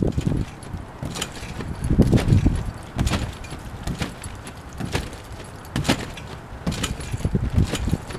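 A person bouncing on a wet trampoline: at each landing the mat thumps and the metal springs jangle, about once a second.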